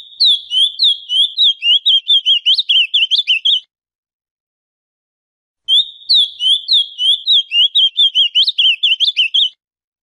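Ultramarine grosbeak (azulão) singing two song phrases of about four seconds each, with a pause of about two seconds between them. Each phrase is a quick run of short, bright, warbled notes.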